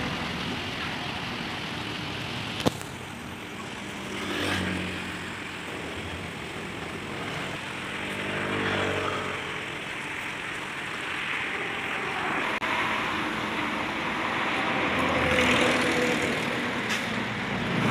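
Steady outdoor traffic noise, with motor vehicles passing twice, about four seconds in and again around eight to nine seconds in. A single sharp click comes about two and a half seconds in.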